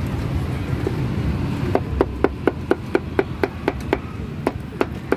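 Knife chopping on a cutting board: a run of about ten quick, even strikes, about four a second, starting near two seconds in, then a short pause and a few slower strikes. A steady low rumble underneath.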